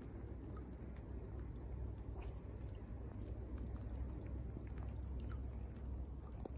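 Quiet ambience: a low, steady wind rumble on the microphone with sparse, faint ticks scattered through it, about two a second.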